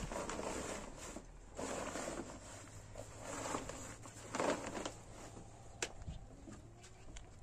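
Large cloth and plastic-backed sheets rustling in several short bursts as they are spread, folded and smoothed on the floor by hand, with a single sharp tap about six seconds in.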